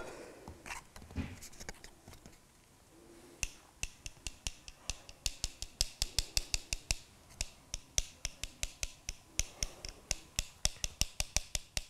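Shell castanets clicking in quick, uneven runs, several sharp, clear clicks a second, starting about three seconds in.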